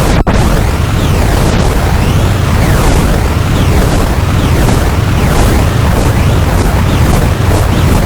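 Synadrone noise synthesizer putting out a loud, dense wall of noise with a heavy low rumble and faint pitch sweeps running through it. It cuts out for an instant about a quarter second in.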